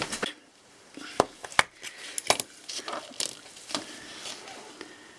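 Light metallic clicks and taps, about five scattered over a few seconds with faint rustling between, as a chrome pocket watch case is handled and its back is opened.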